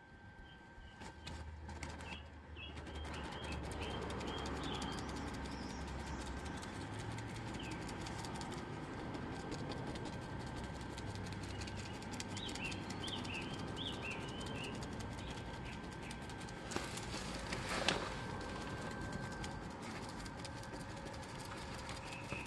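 Small birds chirping in short phrases a few times, over a steady soft crackle of a bristle brush dabbing epoxy resin into glass-fibre cloth. A single sharper knock comes about eighteen seconds in.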